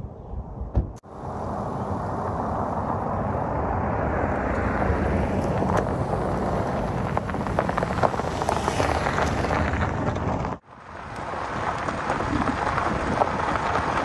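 Toyota RAV4 SUV driving along a gravel road and past close by, its tyres crunching on the loose gravel, loudest as it goes by about eight or nine seconds in. The noise breaks off sharply about ten and a half seconds in, then a similar steady gravel-road noise picks up again.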